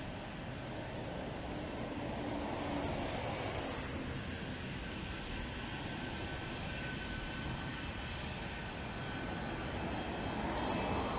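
Boeing C-17A Globemaster III's four Pratt & Whitney F117 turbofans running at taxi power: a steady jet rumble with a faint high whine, swelling slightly near the end.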